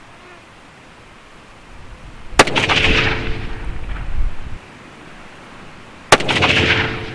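CZ 600 Range bolt-action rifle in .308 firing two shots, one about two and a half seconds in and the second near the end. Each is a sharp crack followed by a rolling echo that fades over about two seconds.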